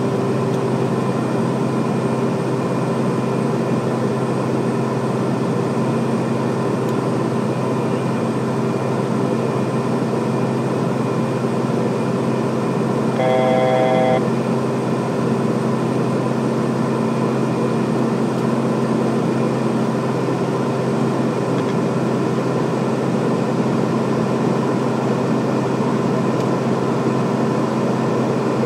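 Steady drone of a Beechcraft King Air B200's twin turboprops heard in the cockpit during cruise-descent, a constant hum with steady propeller tones. About halfway through, a brief pulsed electronic chime sounds over it, and one low hum tone fades out a few seconds later.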